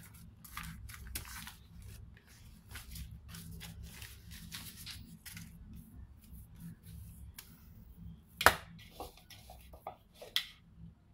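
A printed wrapper rustling and crinkling in the hand as the oil left in it is rubbed over a ball of bread dough. About eight seconds in comes one sharp knock, followed by a few lighter clicks, over a steady low hum.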